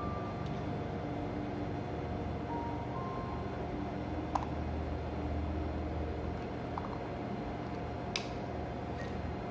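Steady low background hum, with two sharp clicks about four and eight seconds in.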